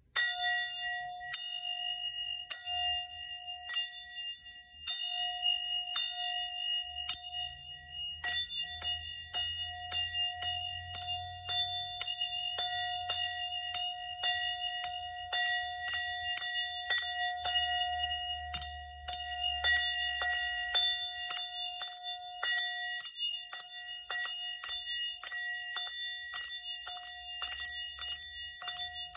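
Sound bowl played with bells instead of a wooden striker: repeated bright ringing strikes over a sustained, steady ringing tone. The strikes come about once a second at first and quicken to two or three a second from about eight seconds in.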